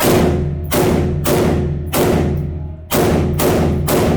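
A run of loud shots from an AR-15 rifle in an indoor range, irregular at first and then about two a second, each ringing on. Background music with a steady bass plays under the shots.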